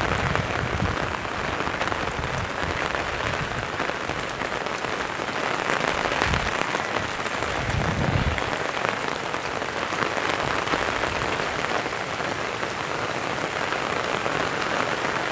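Steady rain falling, an even hiss, with a few brief low rumbles near the start and twice midway.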